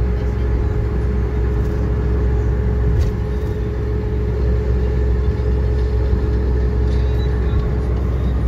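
Steady interior noise of a car driving along: a constant low rumble of engine and road with a faint steady hum.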